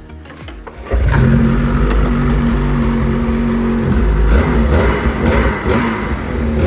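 The 2024 Ski-Doo Freeride Turbo R's turbocharged Rotax two-stroke engine running, uncovered. It comes in loud about a second in and holds steady, then its pitch wavers in the second half as the newly fitted finger throttle is worked.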